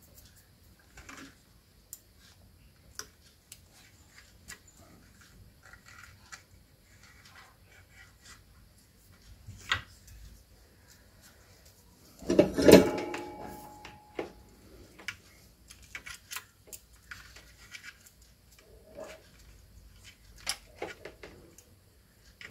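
Hand handling of a circuit board inside a plastic stabilizer case: scattered light clicks and scrapes as a capacitor is fitted, with a louder clatter and brief ring about twelve seconds in as the board is turned over against the case.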